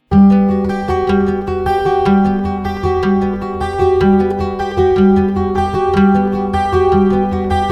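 Background music: a plucked, guitar-like instrumental with a repeating bass figure, starting abruptly out of silence.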